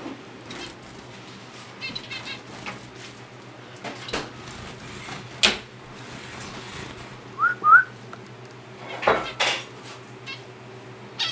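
Pet zebra and society finches calling in a wire aviary cage: scattered short chirps and sharp clicks. Two short rising whistles about seven and a half seconds in are the loudest sounds, and a cluster of sharper calls comes near nine seconds.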